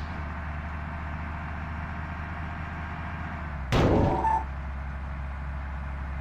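Steady low rumble of road traffic, broken about four seconds in by one short, loud, sudden burst of noise.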